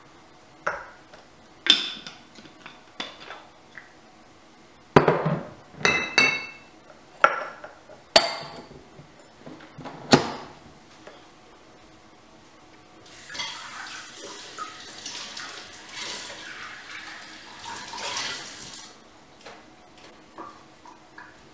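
Metal cocktail shaker and jigger clinking and knocking as it is filled and its lid is pressed on, a dozen or so sharp ringing clinks. Then a kitchen tap runs for about six seconds, followed by a few small clicks.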